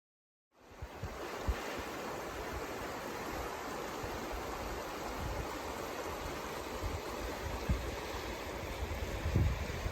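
Creek water running steadily, starting abruptly about half a second in, with low buffeting of wind on the microphone that grows stronger near the end.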